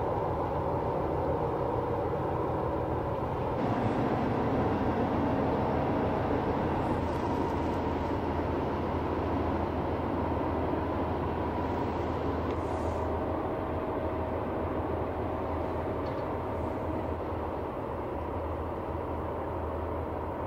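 Bulk carrier's engine droning steadily as the ship passes: a low hum with a faint steady whine above it, easing slightly in the last few seconds.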